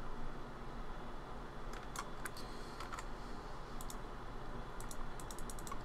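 Computer keyboard and mouse clicks over a steady low hum: a few scattered clicks about two seconds in, then a quick run of about eight key presses near the end.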